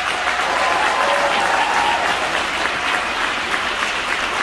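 Large audience applauding steadily in a gymnasium, with a few cheers rising above the clapping in the first couple of seconds.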